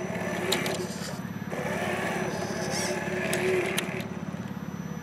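RC4WD Trail Finder 2 1/10-scale crawler's electric motor and geared drivetrain whirring steadily as it crawls over boulders, with tires scrabbling on rock and a few sharp clicks.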